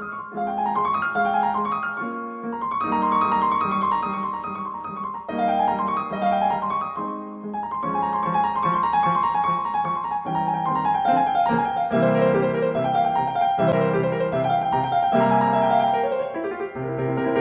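Background piano music: repeated rippling runs of notes over held lower chords.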